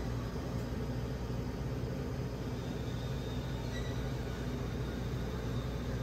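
Steady low rumble and hum with a light hiss, like machinery or traffic background noise, with one faint short high chirp about four seconds in.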